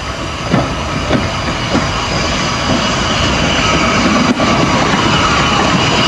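Somerset & Dorset 7F 2-8-0 steam locomotive 53808 running past close by, with a few sharp exhaust beats about half a second apart in the first two seconds. Then comes a steady rumble of wheels and rail noise, with a high ringing squeal, that grows louder as the engine draws level.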